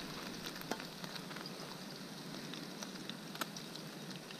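Hot frying grease crackling and sizzling as it is poured from a stainless frying pan of browned chicken into a small saucepan: a steady soft hiss dotted with irregular sharp ticks.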